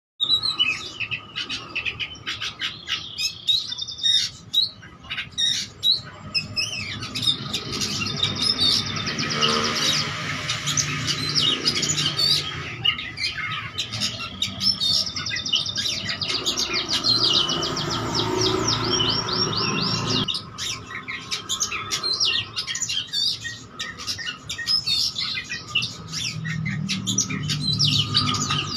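Oriental magpie-robin (kacer) singing almost without pause: a rapid, varied run of chirps, whistles and fast trills. Its song is full of imitations of other birds' calls ('full isian').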